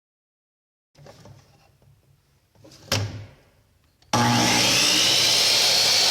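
Faint handling knocks, one sharp knock near the middle, then a handheld power tool starts suddenly and runs loud and steady, its motor whine rising as it spins up, while building a shelf from OSB and 2x4s.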